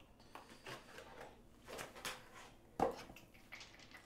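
Rustling and light scraping of cards and small objects being handled on a tabletop, with one sharp knock nearly three seconds in.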